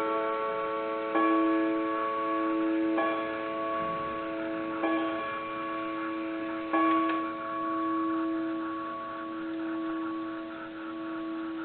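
Mayland chimes of a 1927 Seth Thomas Chime No. 98 tambour clock being struck: four notes about two seconds apart, each ringing on and slowly dying away. The clock ticks steadily underneath, about three ticks a second.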